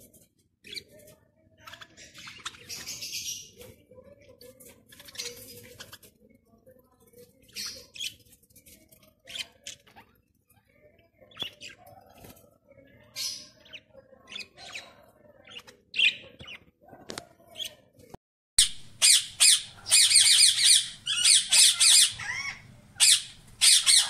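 Budgerigars chirping on and off in short, fairly quiet bursts. About three-quarters of the way through, this gives way abruptly to loud, rapid, harsh squawking from green Indian ringneck parakeet chicks that are still being fed by their parents.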